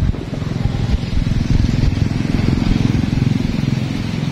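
Small vehicle's engine running, heard from inside the cab, with a fast, even low pulsing.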